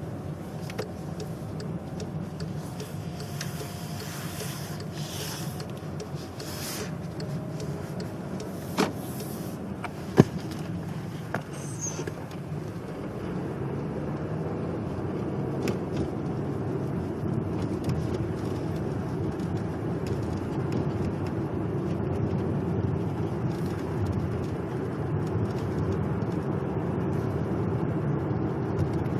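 Volkswagen Passat B7 brake pedal creaking and clicking as it is worked in freezing weather, the cold being what brings the creak on. It sounds over a steady low hum, with a few sharp clicks near the middle, the loudest about ten seconds in.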